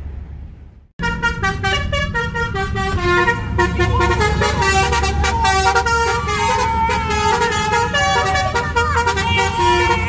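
Multi-tone 'telolet' car horn (Basuri type) playing a stepping melody, its notes changing several times a second. It cuts in suddenly about a second in, over a low vehicle rumble.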